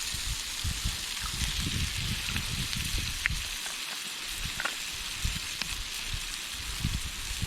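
Pumice stone rubbed over the flesh side of a dried fur pelt: a rasping scrape in repeated strokes, sanding the hide soft in the final stage of tanning.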